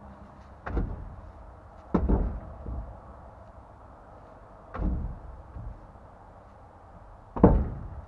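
Four heavy blows struck against a dump trailer's tire and wheel, spaced one to three seconds apart, some followed by a lighter knock; the last is the loudest.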